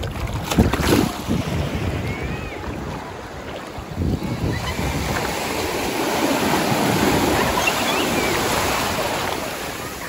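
Sea surf breaking and washing in over shallow water, the rush swelling from about halfway through and fading near the end. Wind buffets the microphone at the start.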